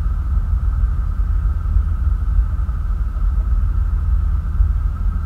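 Motorboat running at towing speed, heard from its stern: a steady low rumble with a faint steady whine above it.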